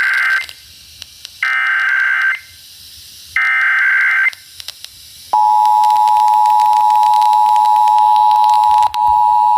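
Emergency Alert System tones heard off the air. First the end of the three data-burst SAME header, a buzzy warbling squawk repeated three times about a second apart. Then the steady two-tone EAS attention signal (853 and 960 Hz) starts, holding one unchanging chord and breaking off briefly near the end, signalling that a Required Monthly Test message follows.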